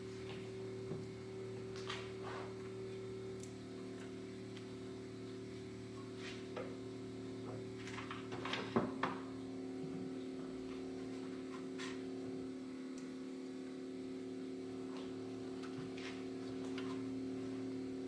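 Light clicks and knocks of hands working on parts at the front of the car's engine bay, scattered through, with the loudest cluster about nine seconds in, over a quiet steady hum of held tones that shift in pitch about halfway.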